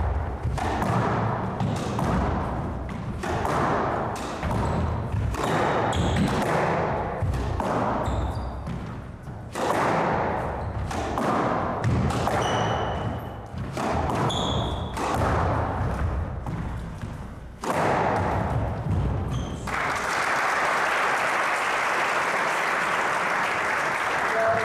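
Squash rally: the ball cracking off rackets and the court walls in a quick, even run of hits, with rubber-soled shoes squeaking on the wooden floor. The hits stop about twenty seconds in, giving way to a few seconds of steady rushing noise.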